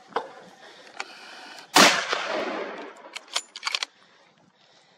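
A single rifle shot about two seconds in, its report echoing and dying away over the next second. A few quick sharp clicks follow shortly after.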